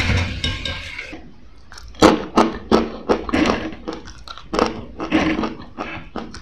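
Hot oil sizzling as fried jackfruit strips are lifted out, fading away within the first second. From about two seconds in, crisp jackfruit chips are bitten and chewed, a run of sharp crunches two to three a second.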